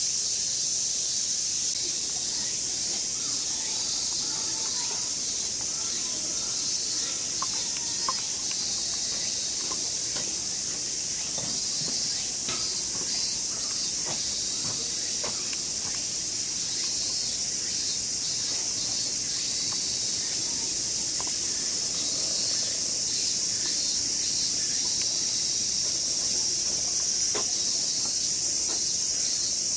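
Steady chorus of summer cicadas, a high, even hiss that carries on without a break. A few faint clicks sound over it near the middle.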